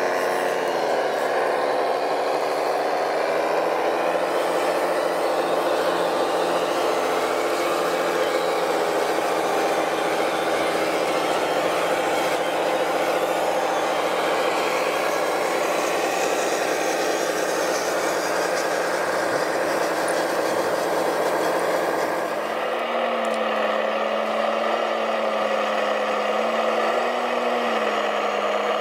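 1:14 scale radio-controlled trucks running through mud: steady motor and engine sound with held whining tones. The sound changes about two-thirds of the way through, with a new steady tone that shifts slightly in pitch near the end.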